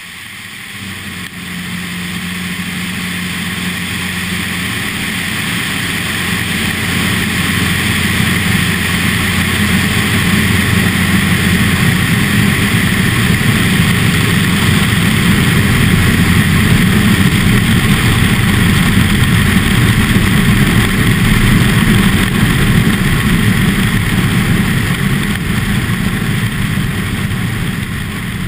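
Steady rush of wind over a tail-mounted action camera, with the drone of a Cessna 172RG Cutlass's engine and propeller in flight underneath. It swells up over the first couple of seconds, then holds.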